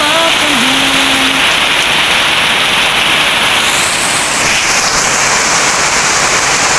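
Heavy rain pouring down in a steady, dense hiss, its sound shifting a little about four seconds in.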